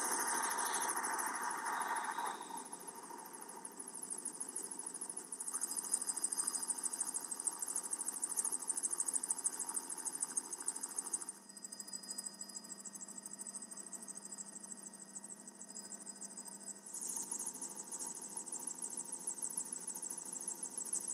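Steady helicopter engine and rotor noise with a fine rapid flutter. Its tone shifts abruptly three times.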